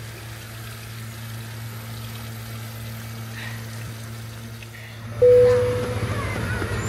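Small rock garden waterfall splashing steadily into its pool, under a constant low hum. About five seconds in the sound changes: a short loud tone that fades within about half a second, then a rougher outdoor rumble.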